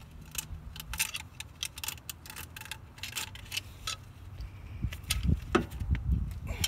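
Irregular metal clicks and clinks from a C-clamp's sliding T-bar handle and screw as it is turned to press a brake caliper piston back into its bore, with a few dull low knocks near the end.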